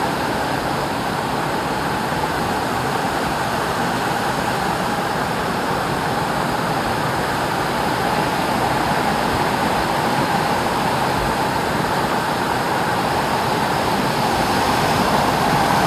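Rushing water of a mountain waterfall and river, a steady, even roar of falling and flowing water.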